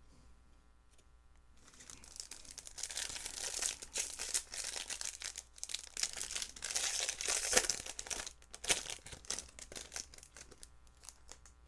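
Foil wrapper of a trading card pack being torn open and crinkled, starting about a second and a half in, with many sharp crackles; it thins to a few scattered crinkles near the end as the cards come out.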